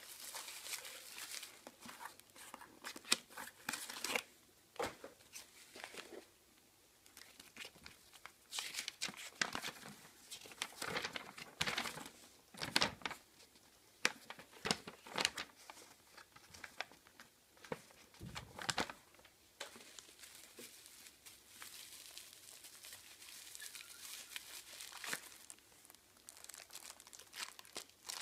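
Packaging being handled: a small cardboard box opened, a paper instruction sheet rustled and a plastic bag crinkled, in irregular rustles, scrapes and clicks.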